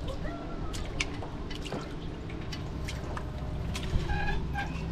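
Lake water sloshing and dripping around a wire-mesh fish basket hung at a boat's side, with scattered small clicks. A few short high tones sound about four seconds in.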